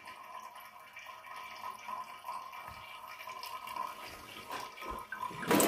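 Faint trickling and dripping of water, then near the end a sudden loud rush of water splashing into a stainless steel sink.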